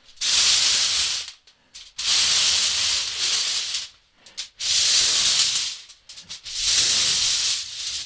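Breath blown onto a sheet of tin foil held just in front of the mouth: four long, hissing blows, each a little over a second, with short pauses between them.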